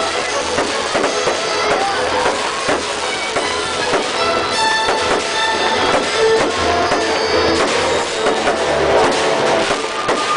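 Loud music with a drum beat plays over a fireworks display, with repeated firework bangs and crackles mixed in.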